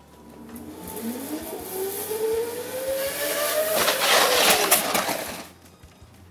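A zipline trolley's pulleys rolling along the cable under a rider-carrying primary glider, making a whine that rises steadily in pitch as it gathers speed. This is followed by a loud rushing noise for a second or two as the glider reaches the end of the line and stops.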